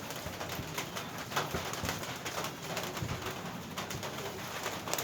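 Pigeons or doves cooing, with scattered light clicks and taps.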